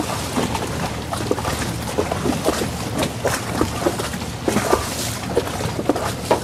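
Water splashing and sloshing against the hull of a moving river boat, in irregular short splashes over a steady low engine drone.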